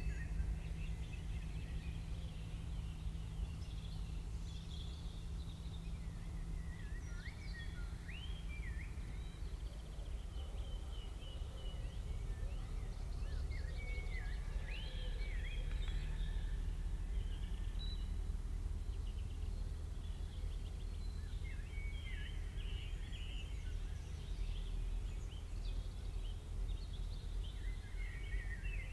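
Birds chirping and calling again and again over a steady low rumble of outdoor background noise.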